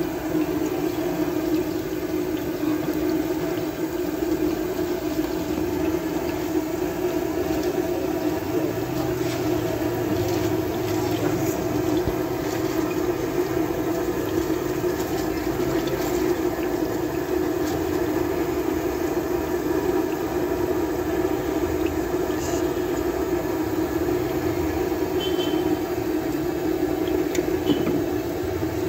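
Chicken seekh kebabs deep-frying in a wide pan of hot oil: steady sizzling and bubbling, over a steady hum.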